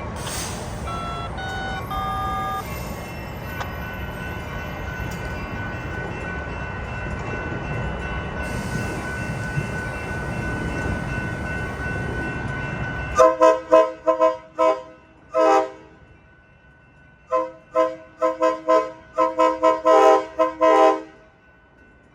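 Locomotive horn sounded in many short toots, each a chord of several notes, in two quick runs starting a little past halfway. Before that comes a steady rumble that cuts off suddenly.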